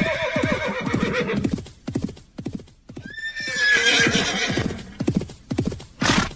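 Horse galloping with steady, rhythmic hoofbeats, and neighing twice: one whinny trails off in the first second and a half, and a second one falling in pitch comes about three seconds in. A short, sharp noise sounds near the end.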